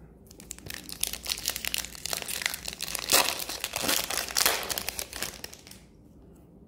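Foil wrapper of an Upper Deck hockey card pack crinkling and crackling as it is torn open and peeled off the cards, for about five seconds, loudest around the middle.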